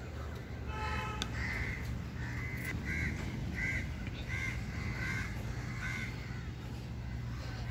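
A crow cawing over and over, about seven caws a little under a second apart, starting about a second and a half in, over a steady low rumble.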